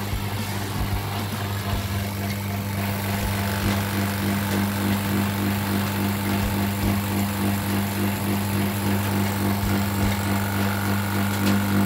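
Value oil-sealed rotary-vane vacuum pump running, a steady electric-motor hum with a low mechanical drone.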